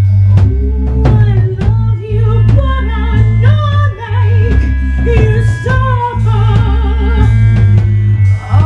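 A band playing a song: a singer holding wavering, vibrato notes over a heavy bass line, with guitar and drums.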